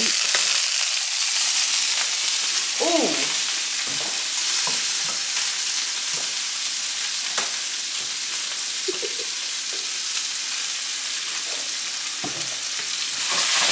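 Food frying in hot oil in a pan: a steady sizzle with scattered sharp pops.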